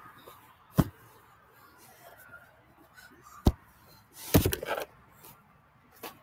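Handling noise from a phone camera being moved and set down: a few sharp separate knocks, then a louder cluster of bumps and rubbing about four seconds in.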